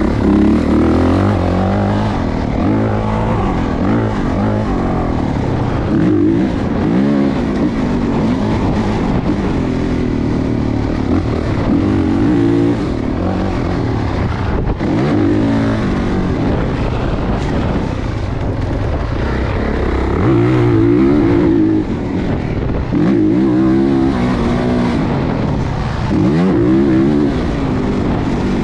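Motocross dirt bike engine being ridden hard, revving up and dropping back again and again as the rider works the throttle and gears.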